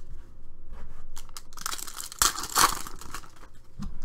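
The wrapper of a Panini Prizm basketball card pack being torn open and crinkled: a burst of tearing from about one and a half to three seconds in, after a few light clicks of cards being handled.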